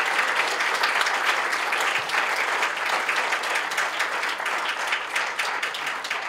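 Audience applauding, many hands clapping steadily and easing a little near the end.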